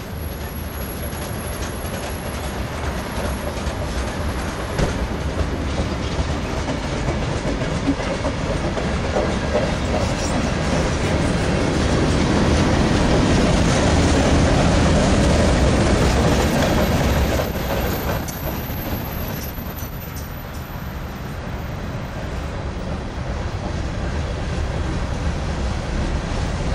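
Freight cars of a Canadian Pacific mixed freight rolling past: steady rumble and rattle of steel wheels on the rails. It grows louder through the middle as a string of tank cars goes by, then eases off a little after that.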